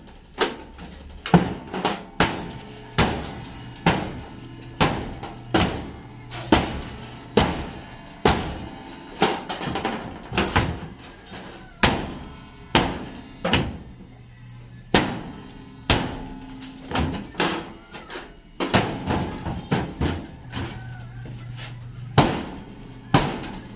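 Repeated blows, about one a second, of a hammer and a foot striking sheet-metal siding and its steel frame to knock the siding loose.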